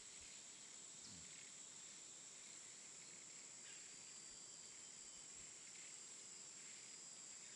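Near silence, with a faint steady high-pitched insect drone.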